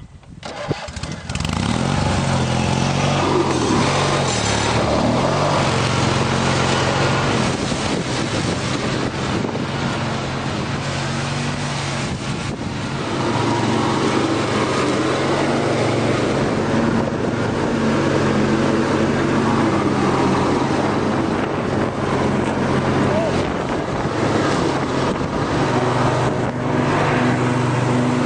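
Riding lawn tractor's engine and mower deck running steadily while cutting tall grass, after coming up in level over the first second or so.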